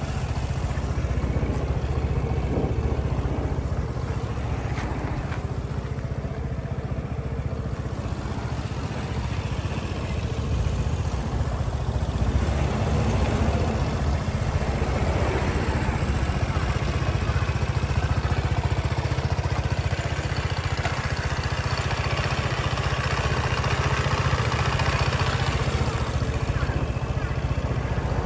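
Piaggio MP3 250 three-wheeled scooter's water-cooled four-stroke single-cylinder engine idling steadily, in the good running order the seller claims for it.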